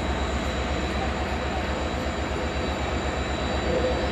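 Diesel freight locomotive hauling a container train, its engine running with a steady, rapidly pulsing low throb.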